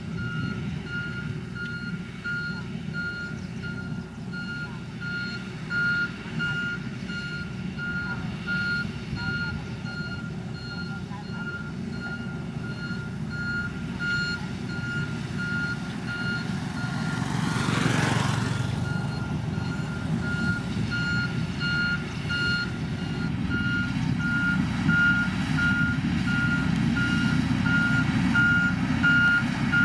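Back-up alarm of a heavy road-building machine beeping steadily about twice a second over the low running of its diesel engine. A brief rushing swell of noise passes about two-thirds of the way through, and the engine grows louder near the end.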